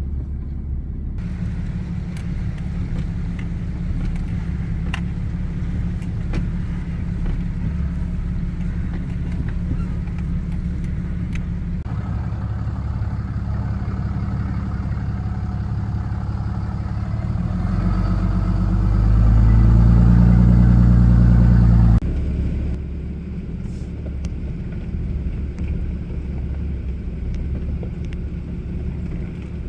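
Ram 2500's Cummins turbo-diesel and road noise, heard while driving with a trailer in tow: a steady low drone. About eighteen seconds in, the engine note climbs in pitch and gets louder under acceleration, then cuts off abruptly a few seconds later.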